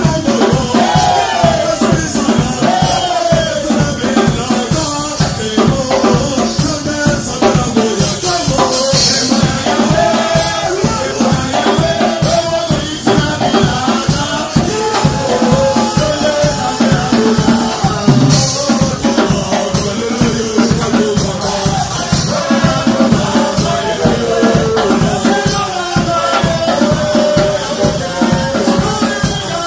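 Live church worship music: several men singing together into microphones over drums and shaken percussion with a steady beat, amplified through a PA.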